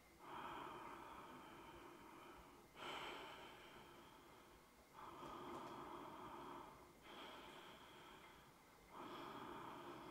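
Slow, even breathing in and out, about five breaths of roughly two seconds each following one another closely, picked up close on a clip-on microphone as a yoga pose is held.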